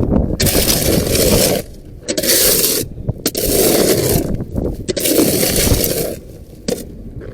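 Shovel scraping and crunching through dried, hardened mud on a hard surface, in about five rough strokes with short pauses between them.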